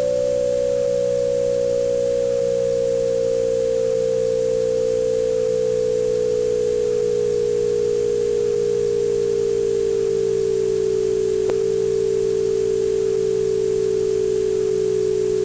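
Two-tone Emergency Alert System style attention signal, slowed well below its normal pitch, held steadily while it slides slowly lower. A low electrical hum and tape hiss run under it, and there is a single click about two-thirds of the way through.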